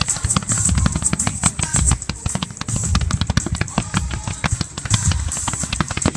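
Aerial fireworks going off in quick succession: a dense, irregular stream of bangs and crackling, with heavier booms about once a second.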